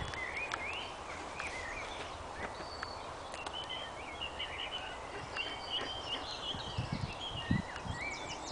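Wild songbirds singing in short warbling phrases over a steady outdoor hiss, with a couple of soft low thumps near the end.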